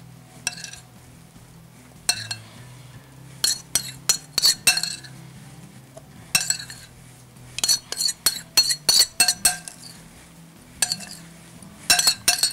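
Metal spoon clinking and scraping against a glass bowl and glass baking dish as thick batter is scooped out and spread over a whole fish. The clinks come in short clusters every second or two, some with a brief glassy ring.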